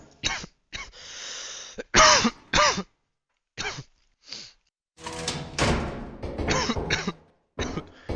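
People coughing and clearing their throats in a run of short coughs, some of them voiced. There is a pause near the middle, then a denser stretch of coughs that overlap one another.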